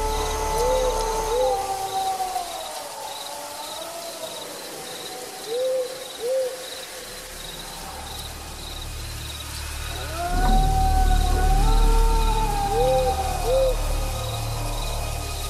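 Eerie hooting tones that slide and waver up and down, each phrase ending in two short quick hoots; the phrase comes twice, about ten seconds apart. A steady high insect-like chirping runs underneath, and a low rumble comes in about ten seconds in.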